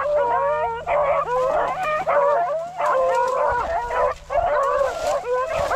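A pack of rabbit-hunting dogs baying together, many voices overlapping without a break: the pack has jumped a rabbit and is running its trail.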